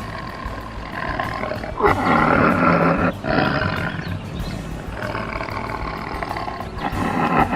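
Recorded tiger roaring and growling in several long stretches, loudest from about two seconds in.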